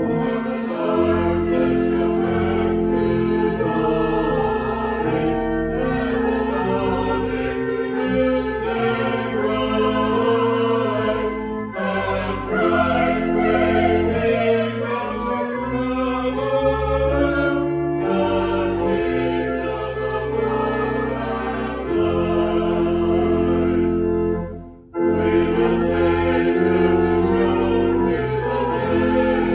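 Church music: a choir singing a hymn with instrumental accompaniment, in long held phrases with a short break about 25 seconds in.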